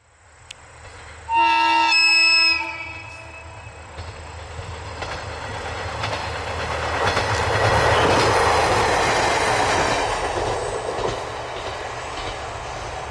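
Noto Railway NT200 diesel railcar sounding its horn once, about a second long, then running past: engine hum and wheels clicking over the rail joints grow to a peak near the middle and fade away.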